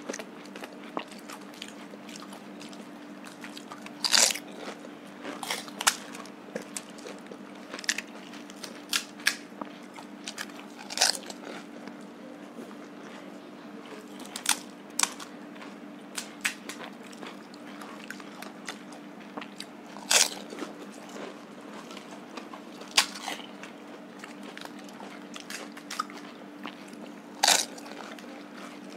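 Crisp fuchka (panipuri) shells cracking and crunching in sharp, scattered bursts as they are broken open with the fingers and bitten, with chewing in between. A steady low hum runs underneath.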